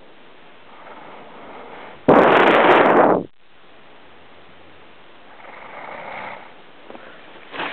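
A sleeping person snoring: one loud snore of just over a second, starting and stopping abruptly about two seconds in, then a faint, softer breath around six seconds in.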